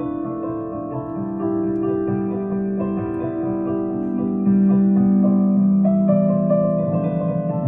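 Solo keyboard playing slow, held chords, the notes ringing on and changing about once a second, with a stronger, louder bass chord coming in near the end.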